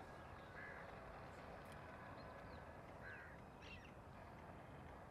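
Quiet outdoor background noise, around 47 dB on a sound level meter, with a few faint, short bird calls.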